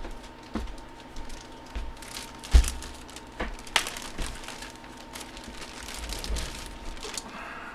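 Packaging being handled and unwrapped: crinkling and rustling with scattered clicks and taps, and one thump about a third of the way in.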